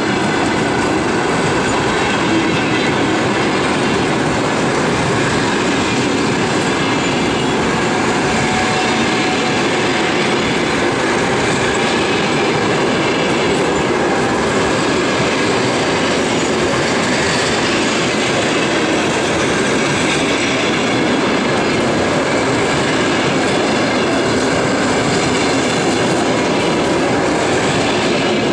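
A long passenger train's coaches rolling past close by, with steady wheel-on-rail noise throughout.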